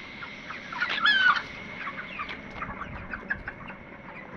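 A flock of 29-day-old broiler chickens clucking and chirping, with one louder squawk about a second in.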